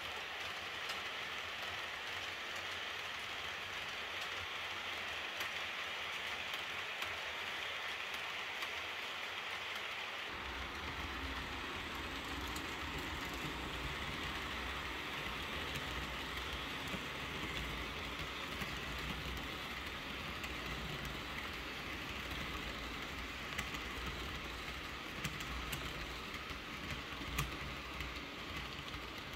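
Model trains running on the layout's track: a steady hiss of wheels and small motors, then, after a cut about ten seconds in, a closer train running past with a low hum and occasional light clicks from the wheels over the track.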